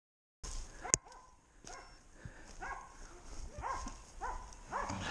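Hunting dogs barking in a steady string, about two barks a second, as they bay a wild boar. A single sharp crack about a second in.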